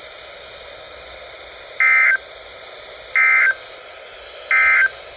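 Emergency Alert System end-of-message data bursts on NOAA Weather Radio: three short, identical buzzy digital chirps about 1.3 seconds apart, over steady receiver hiss. They signal that the severe thunderstorm warning broadcast has ended.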